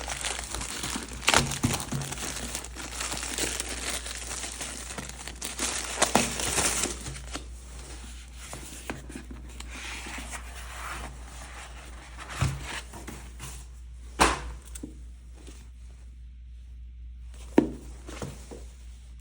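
Book packaging being torn open and crinkled by hand, a dense crackle for the first several seconds, then quieter rustling and handling. Sharp knocks come at intervals throughout.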